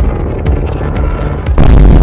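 Cartoon sound effect of clashing energy beams, then a sudden loud, deep explosion boom about one and a half seconds in, over background music.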